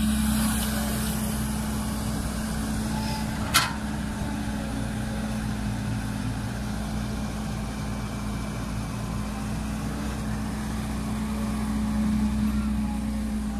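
Caterpillar tracked excavator's diesel engine running steadily as it digs, with a single sharp knock about three and a half seconds in.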